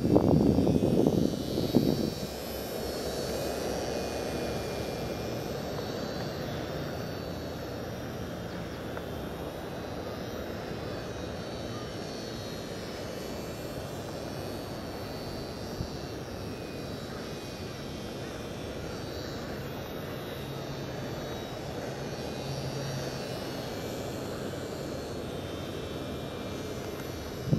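Thin, high motor whine of a radio-controlled model aircraft flying around overhead, rising and falling in pitch as it passes and changes throttle. In about the first two seconds, clothing rubs against the microphone with a loud low rustling.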